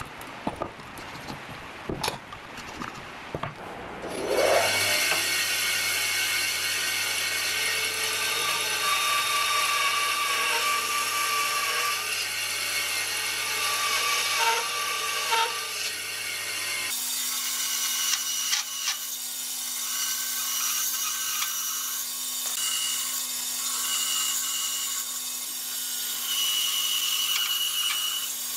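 A few light clicks and knocks of wood being handled. About four seconds in, a band saw starts up with a rising whine, then runs steadily, cutting through a wooden block; its tone changes abruptly partway through.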